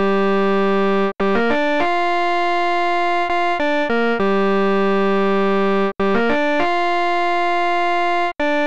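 Synthesized keyboard melody of a Japanese pro-baseball player's cheering song, played without drums: four long held notes, each broken off by a short run of quick notes.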